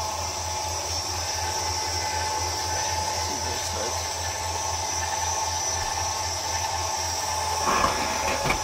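Travel trailer's powered auto-leveling system running steadily, its rear leveling jacks extending down on both sides with a continuous motor whine and hum.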